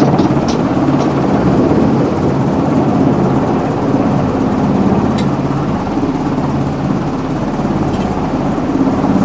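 Coast Guard Jayhawk helicopter running on a ship's flight deck after touchdown, turbine engines and main rotor turning at a steady, loud drone.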